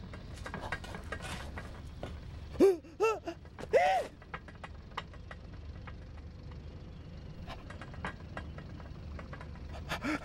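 Armored Trooper mech sound effects: a low steady hum with scattered mechanical clicks, and three short whirring whines that rise and fall, close together, a little under three seconds in.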